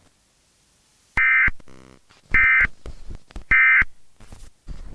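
Emergency Alert System end-of-message tones: three short bursts of high digital data tones, about a second apart, marking the end of the alert.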